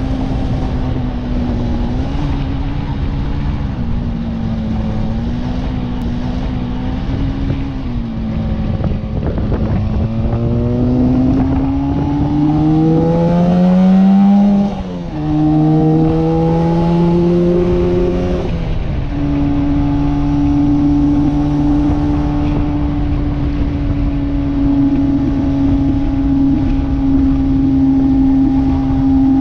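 A 1966 Suzuki T20 (X-6 Hustler) 250 cc two-stroke twin engine under way: running steadily, then revving up from about eight seconds in, with a brief break and drop in pitch about halfway through as it shifts up. It pulls higher again, drops once more a few seconds later and settles into a steady cruise.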